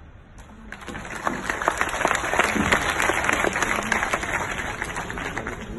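Audience applauding, building up about a second in and slowly tapering off toward the end.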